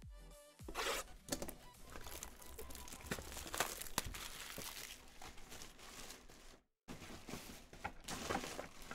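Packaging on a box of trading cards being torn open and crumpled: a run of crinkling and tearing with small clicks and taps. The sound cuts out for a moment about two-thirds of the way through.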